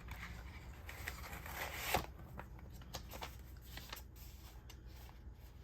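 Paper packaging rustling and being handled, with light clicks and taps and a louder rustle about two seconds in.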